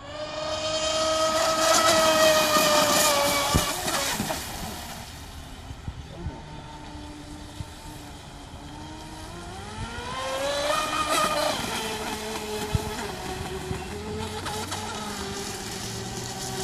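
An RC speedboat's 56 mm brushless electric motor whining at speed on a 6S battery setup. Its pitch sags and then climbs again about two-thirds of the way through as the throttle and the boat's distance change. A few sharp knocks cut in.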